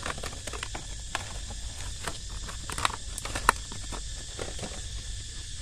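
Wire-mesh snake trap wrapped in a plastic sack being handled: scattered small clicks and rustles, with a few sharper knocks, the loudest about three and a half seconds in.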